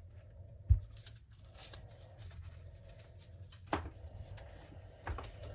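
Faint room tone broken by three soft knocks: one about a second in, one near four seconds, and one near the end.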